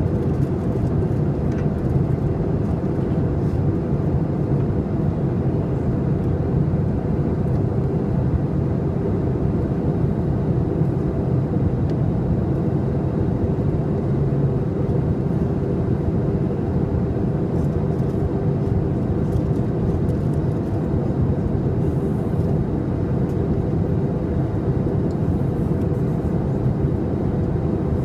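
Airbus A321 cabin noise in flight, heard from a seat over the wing: a steady low drone of engines and airflow that does not change.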